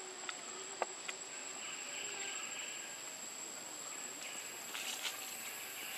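Steady insect chorus of crickets in the forest, with a high continuous buzz and swells that rise and fade. A few small clicks come in the first second and again near the end.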